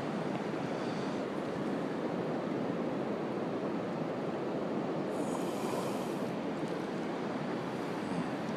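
Ocean surf washing in: a steady rush of water, with a brighter hiss for about a second a little past the middle.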